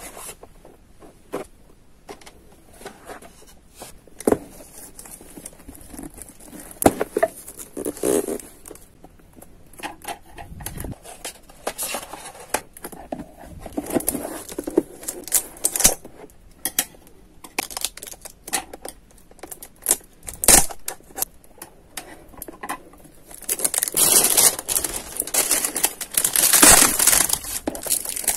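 Cardboard box and paper packaging being handled and opened: scattered taps, scrapes and rustles, then near the end a longer, louder spell of crinkling and tearing.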